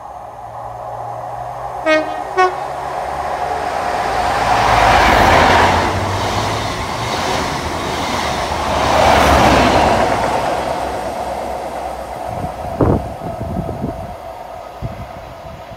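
CrossCountry Class 43 HST sounding two short horn notes about half a second apart, then passing at speed: diesel engine and rolling wheel noise build to a loud peak about five seconds in and a second peak about nine seconds in, then fade as the train recedes, with a few sharp knocks near the end.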